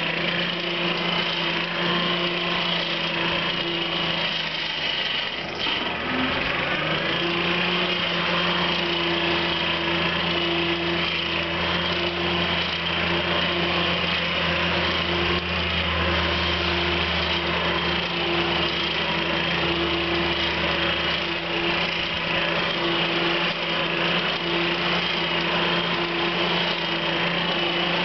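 Coal forge's air blower running steadily, a constant motor hum with a hiss of forced air, blasting the fire up to full heat. Its pitch sags and glides back up about five to seven seconds in.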